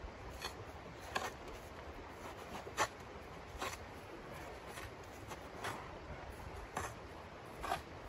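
Short crunching scrapes in snow from a small hand tool worked at the snow surface, about seven irregular strokes.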